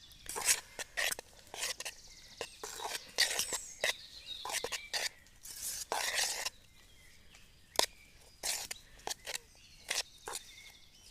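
Irregular sharp clicks and short scraping, rustling bursts from utensils and food being handled while the grated potato mix is salted. Birds chirp faintly behind.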